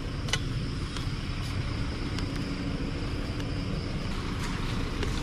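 Steady engine hum, with a few sharp clicks over it and a faint steady high hiss.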